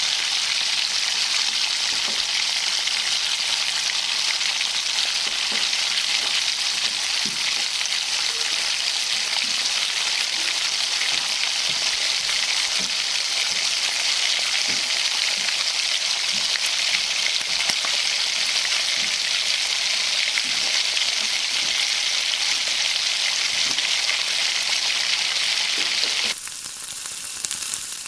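Food sizzling steadily in hot oil in a cooking pan, with light scattered taps of a stirring spoon; the sizzle drops abruptly quieter near the end.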